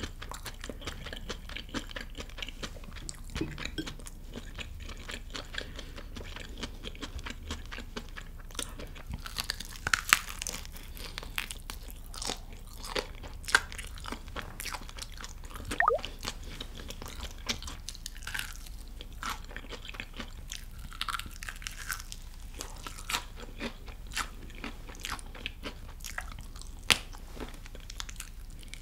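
Close-miked crunching and chewing of crisp-battered fried chicken drumsticks: scattered bites and chews with a few louder crunches.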